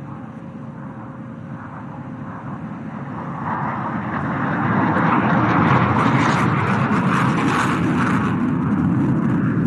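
JF-17 Thunder fighter's single Klimov RD-93 turbofan heard from the ground as the jet flies a high-G 360-degree turn. The jet noise swells from about three seconds in and stays loud.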